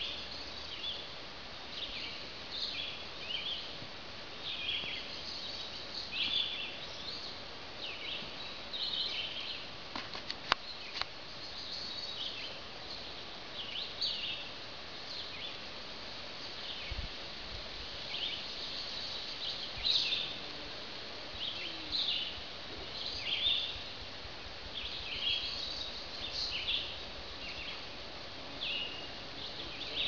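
American robins singing in short, repeated phrases of high whistled notes, with other songbirds, over a steady outdoor hiss. A few brief clicks come about ten seconds in.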